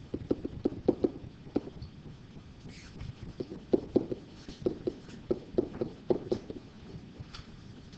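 Pen tip tapping and clicking against an interactive whiteboard while writing: quick irregular sharp clicks, in a flurry in the first second and another from about three and a half to six and a half seconds in.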